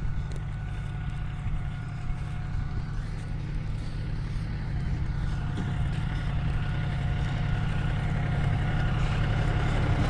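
Farm tractor's diesel engine running steadily under load while it levels a dirt road, growing louder toward the end.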